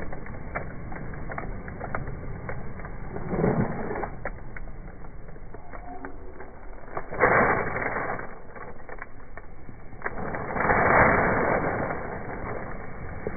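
Plastic bags of collected litter being handled and rustled, with scattered clicks and knocks and three louder bursts of rustling, the longest near the end.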